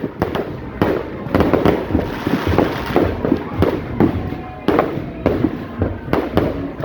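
Fireworks going off: many sharp bangs and pops at irregular intervals, several a second, overlapping one another.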